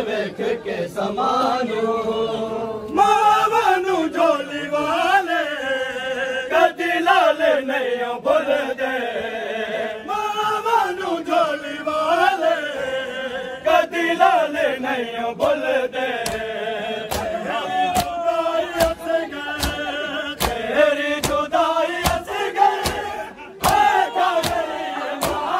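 A group of men chanting a Saraiki noha in unison, in long rising and falling phrases. From about halfway in, sharp rhythmic slaps of matam (chest-beating) join the chant, about one and a half a second.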